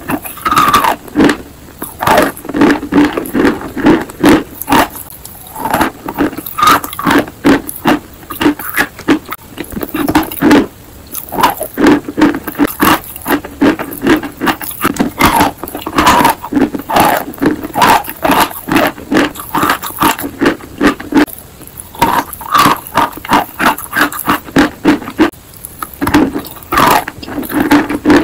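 Close-miked chewing and crunching of a dry chalk block, in quick runs of sharp crunches broken by short pauses, with moist mouth sounds as the chalk turns to paste.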